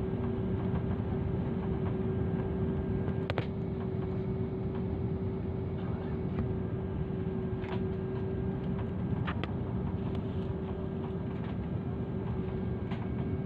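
Jet airliner cabin noise on final approach: the steady drone of the engines and airflow, with an unbroken hum-like tone through it. A few light clicks sound over the drone.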